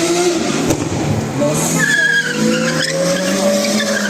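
Lamborghini V12 engine running hard under acceleration, its pitch climbing gradually.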